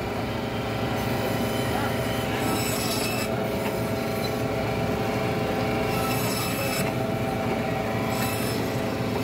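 A rasping scrape over a steady hum, coming in strokes of about two seconds with short gaps between them.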